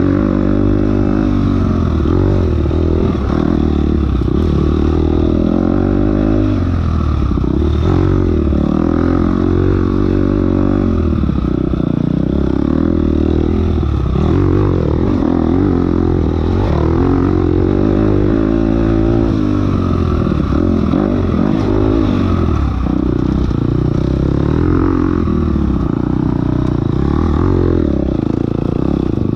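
Enduro dirt bike engine ridden hard, its revs rising and falling over and over without a break, with clattering from the bike.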